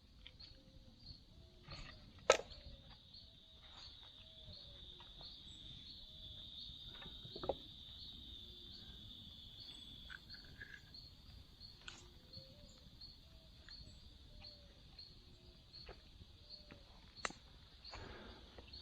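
Insects calling steadily, a high drone with a chirp repeating about twice a second. A few sharp knocks cut through, the loudest about two seconds in, others around seven and seventeen seconds.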